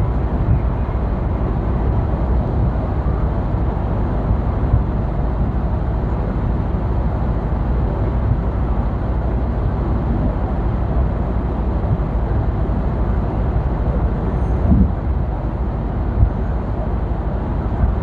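Steady engine and road noise inside a truck cab cruising at motorway speed, with a couple of soft thumps near the end.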